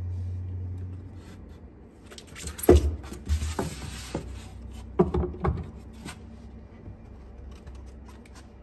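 Handling noise as a 1:24 alloy model truck cab is lifted out of its foam packaging tray and set down on a wooden table: a short rush of rubbing and several sharp knocks between about three and six seconds in.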